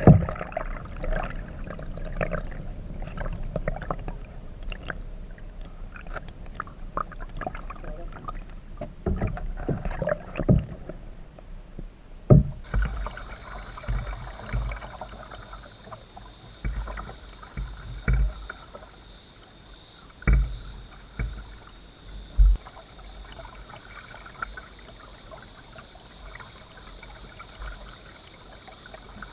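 Kayak paddling: irregular water splashes and knocks of the paddle and hull. About halfway through, a steady high cicada chorus begins and runs on, with a few dull thumps under it.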